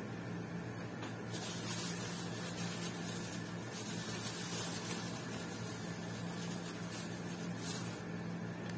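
Thin plastic bag being handled, crinkling and rustling in several bursts from about a second in, over a steady low electrical hum.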